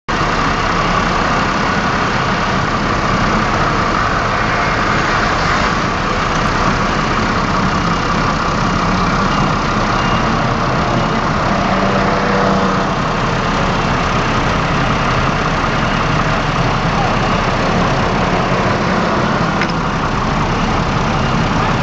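Stock SYM Jet SR scooter engine idling steadily while the scooter stands still.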